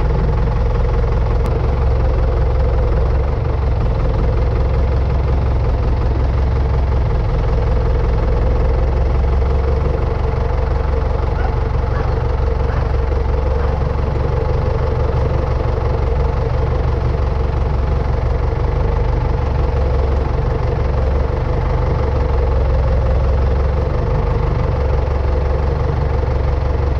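Tractor's diesel engine running steadily, heard close up from its bonnet.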